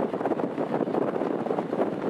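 Running noise of the metre-gauge Glacier Express in motion, heard on board: a steady noise of wheels on track and carriage, with no distinct clacks or tones.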